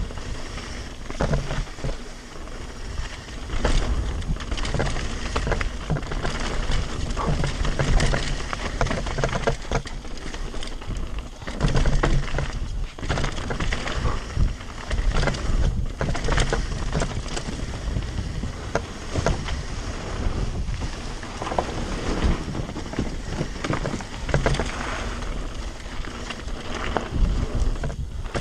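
Devinci Spartan carbon mountain bike ridden fast down a dirt and gravel trail: wind rushing over the microphone, tyres rolling over dirt and loose stones, and frequent knocks and rattles from the bike over bumps.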